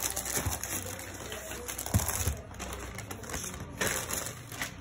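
Plastic courier mailer bag crinkling and rustling as it is handled and a plastic-wrapped case is drawn out of it, with a few soft knocks, the sharpest about two seconds in.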